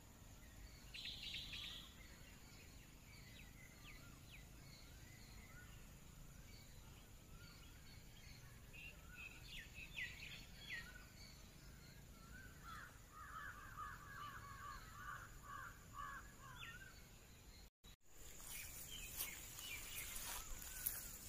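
Wild birds calling faintly in woodland: a short call about a second in, a few sharp chirps near the middle, then a run of rapid repeated notes lasting a few seconds. Near the end the sound drops out briefly and comes back louder, with a few clicks.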